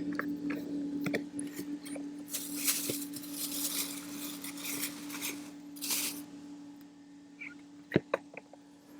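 Camp cooking gear being handled: scattered clinks and clicks with two short rustling bursts and a sharper click near the end, over a steady low hum.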